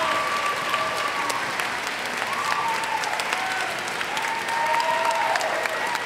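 Large audience applauding steadily.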